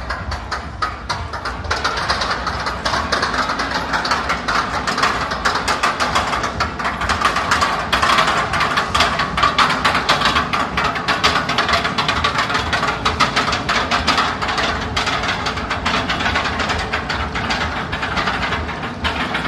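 Roller coaster train running along its track: a steady rumble with a dense, rapid rattle of clicks, a little louder through the middle.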